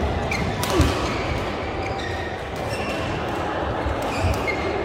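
Badminton rally: rackets smacking the shuttlecock in sharp cracks, the loudest under a second in, with sneakers squeaking and feet thudding on the court floor.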